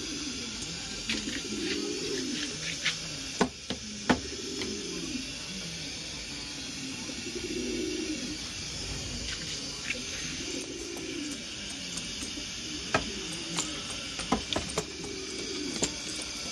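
Syrian domestic pigeons cooing: a low coo that rises and falls, repeated every couple of seconds over a steady hiss. Scattered sharp taps come in between, a cluster about four seconds in and more near the end.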